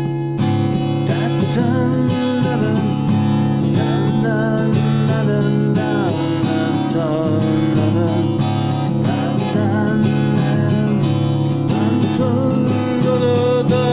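Instrumental music of plucked guitar over held low notes, with a wavering melody line above.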